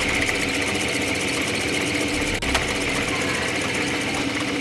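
Motor-driven drill chuck spinning a bit that bores into a block of untreated pallet wood, the motor running at a steady pitch with a high whine.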